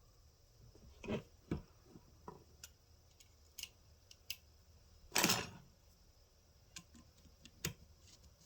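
Scattered small clicks and taps of a screwdriver and metal parts as a screw is started back into a click-type torque wrench's housing, with one louder clatter about five seconds in.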